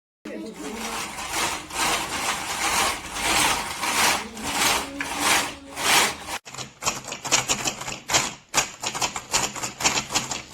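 Plastic toy gear set being turned, a rhythmic rasping clatter of meshing gear teeth. After a sudden break about six seconds in, it becomes a quicker, sharper clicking.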